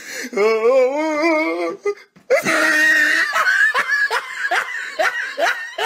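Boys laughing hard: a long, wavering laugh, then after a brief break a high-pitched burst of laughter broken into quick repeated ha-ha pulses.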